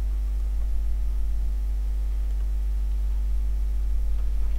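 Steady low electrical mains hum in the recording, with a stack of evenly spaced overtones above it.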